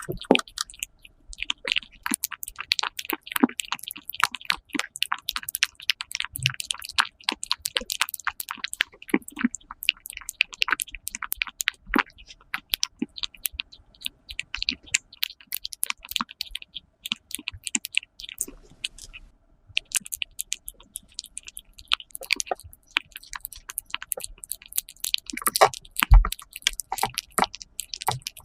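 Cat eating egg yolk: a rapid, irregular run of small wet mouth clicks as it chews.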